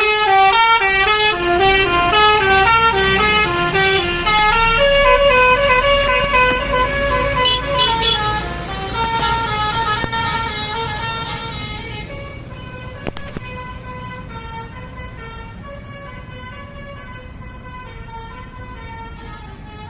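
Telolet basuri multi-tone bus horn playing a quick melody, the notes stepping up and down several times a second over a low rumble. It grows steadily fainter from about halfway through.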